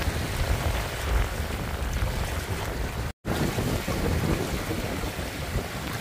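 Wind-driven waves breaking and lapping on a rocky reservoir shore, with strong wind buffeting the microphone as a low rumble. The sound cuts out completely for a split second about three seconds in.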